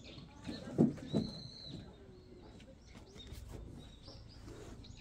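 Birds chirping and calling, with a short high whistled note a little over a second in. Two soft thumps about a second in, from camping gear being set down inside the tent, are the loudest sounds.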